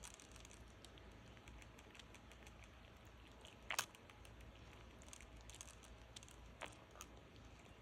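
Near silence broken by faint, scattered little clicks, with one sharper click a little under four seconds in: a gray squirrel licking and mouthing the drinking spout of a hand-held water bottle.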